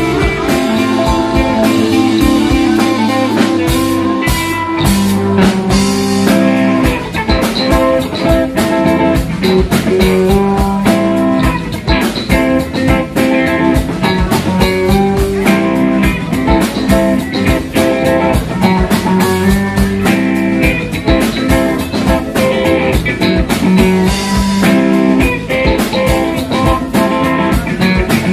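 Live band playing an instrumental funk-rock jam: electric guitar leading over bass and a drum kit keeping a steady, busy beat.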